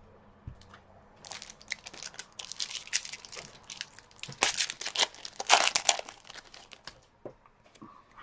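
Foil wrapper of a hockey trading card pack being torn open and crinkled, a run of crackling that starts about a second in and dies away near the end.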